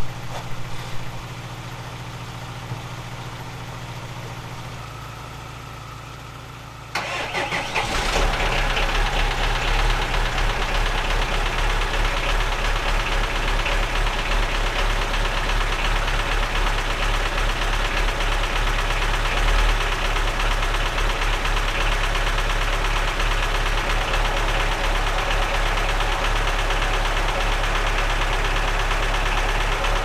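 A jump-start donor car idles quietly. About seven seconds in, the Lada Niva's four-cylinder petrol engine cranks for about a second, catches, and settles into a loud, steady, rough idle that sounds like a tractor, the noise of the misfire the car is suffering from.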